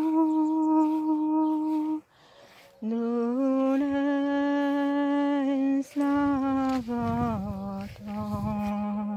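A woman humming a slow hymn tune in long held notes, each lower than the one before, with a short pause about two seconds in. A low rumble runs under the last notes.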